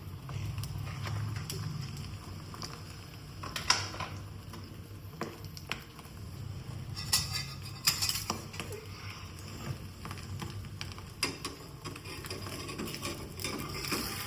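Kitchen utensils clinking and tapping against cookware in scattered short knocks, with a small flurry in the middle, over a low steady hum.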